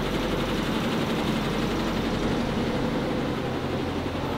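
Steady low mechanical drone with an even hiss over it, unchanging throughout.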